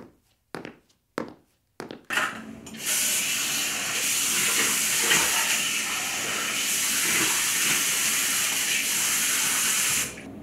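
A few evenly spaced footsteps on a hard floor, then a wall-mounted tap is turned on about two seconds in and water runs steadily into a ceramic washbasin while someone washes their face. The water cuts off suddenly near the end.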